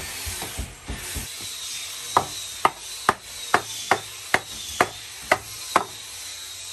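Hatchet chopping at the edge of a curved wooden board, a run of sharp strikes about two a second starting about two seconds in.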